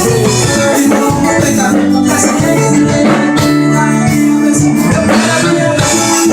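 A live band playing an instrumental passage: held pitched chords over a steady percussive beat.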